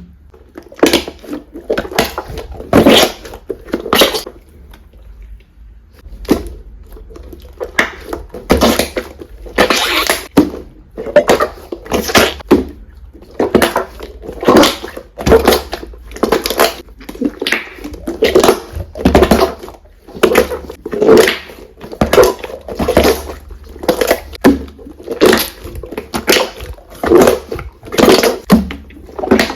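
Slime being squeezed and kneaded by hand, a short wet squelch about every second, with pauses between strokes.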